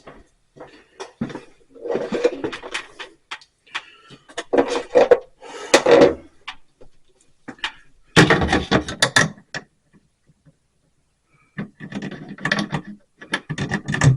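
Irregular bursts of rubbing, scraping and clicking from hands and tools working at electrical wires in a cramped space, in several separate spells with short pauses between them.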